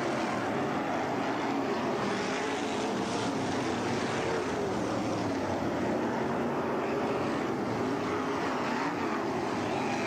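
Winged sprint cars' V8 engines racing on a dirt oval, several engines running hard at once with their pitch rising and falling as the cars lap.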